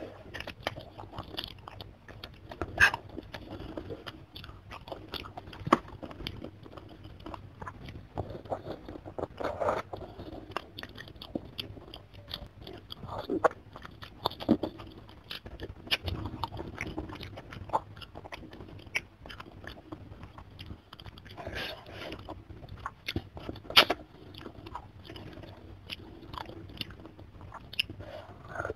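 Close-up chewing and biting of chicken feet and chicken head, with irregular small crunches of bone and cartilage and a few louder sharp crunches.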